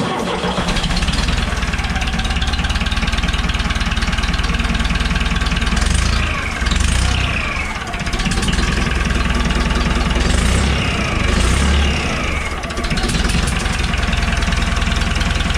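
Nuffield tractor's diesel engine running just after a cold start in frost, mostly at idle. Twice, about six and ten seconds in, the revs rise briefly and fall back.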